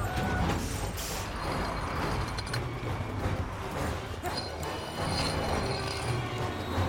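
Tyres screeching as a tanker truck and cars brake hard in traffic, over steady engine and street noise.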